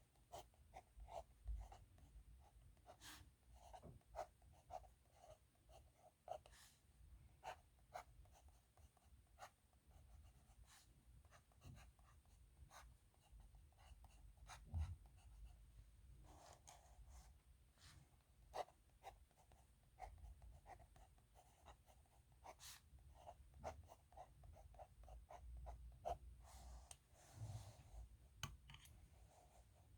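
Faint scratching of a nib pen on paper: many short pen strokes in irregular runs, with a couple of low thumps.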